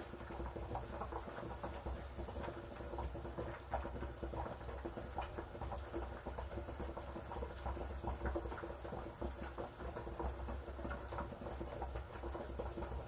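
Olive oil poured in a thin stream into a plastic bucket: a faint, irregular pattering trickle over a low steady hum.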